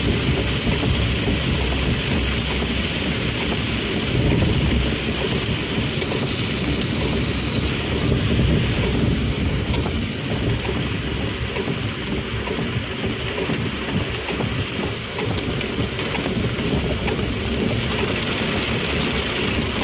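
Heavy monsoon rain pelting the car's windshield and roof, heard from inside the cabin while driving, with a steady low rumble underneath.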